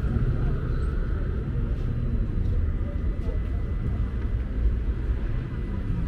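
Busy city street ambience: a steady low rumble of traffic with indistinct voices of people passing by.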